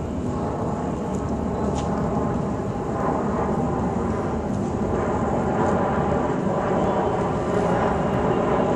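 A steady engine drone, its faint hum growing a little stronger a few seconds in.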